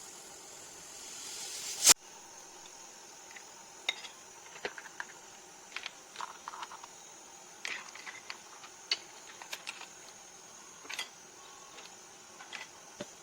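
Kitchen cooking sounds: a hiss that swells to a loud rush and cuts off sharply about two seconds in, then a fainter steady hiss with scattered light clicks and clinks of utensils and dishes.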